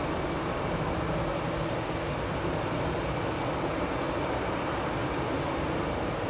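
Airbus A319 jet engines running steadily: a constant rush with a faint high whine.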